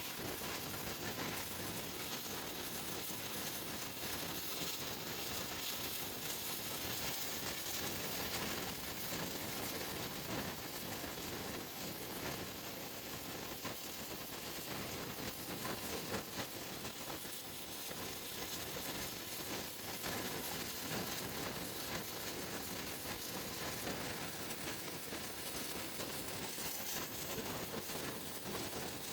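CNC plasma cutter cutting steel sheet: a steady hiss and sizzle that holds evenly with no breaks.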